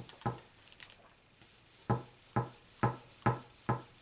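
Regular wooden knocking, about two knocks a second, starting after a brief quiet spell: the tabletop ironing board knocking on the wooden table as the iron is pressed down.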